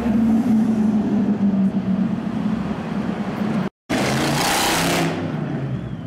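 Lamborghini Aventador's V12 engine running as the car pulls away, a steady exhaust note. After a brief dropout, a second car's engine revs loudly with a strong hiss for about a second. Near the end a faint wavering tone rises and falls like a siren.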